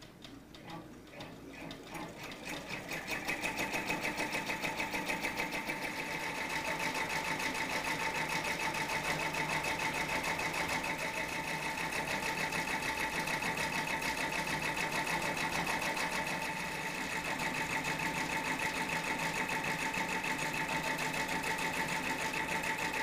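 Baby Lock Enterprise ten-needle embroidery machine stitching a lace design at its lowest speed: a fast, even needle rhythm over a steady whine, building up over the first few seconds.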